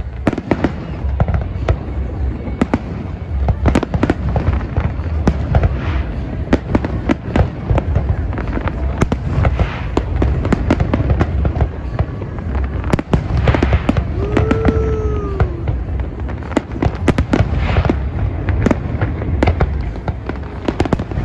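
Dense, rapid cracking and popping, many sharp cracks a second over a steady low rumble, with a brief arching whistle-like tone about 14 seconds in.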